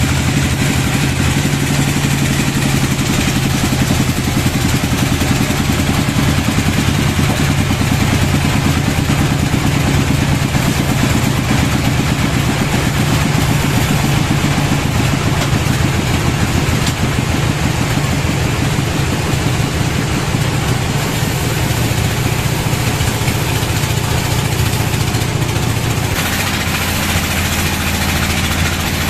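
Band sawmill running steadily under power, its motor droning while the band blade cuts a slab from a log. The sound shifts slightly near the end.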